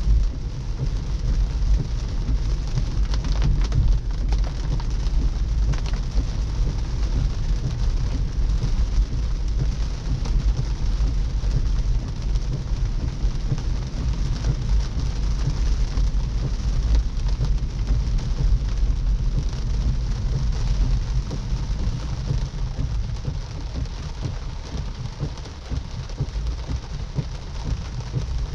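Rain falling on a moving car's roof and windshield, heard from inside the cabin, over a steady low rumble of tyres on wet road.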